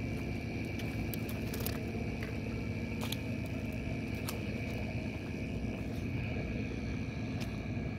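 Steady outdoor background rumble with a faint constant high-pitched tone through it and a few light clicks.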